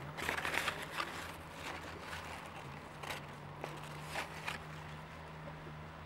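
Fig leaves and twigs rustling and crackling as a fig is picked by hand off the tree, loudest about the first second, with scattered small snaps after. A steady low hum runs underneath.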